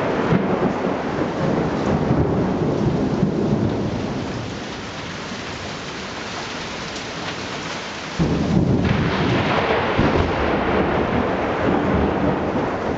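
Thunder rumbling over steady rain. The rumble eases off for a few seconds, then a new, louder thunderclap breaks in suddenly about eight seconds in and rolls on.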